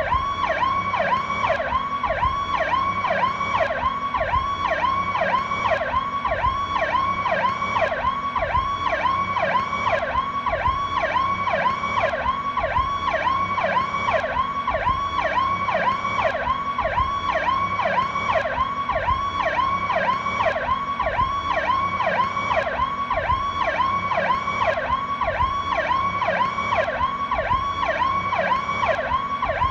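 PowerCall electronic police siren sounding continuously, its tone sweeping rapidly up and down about three times a second.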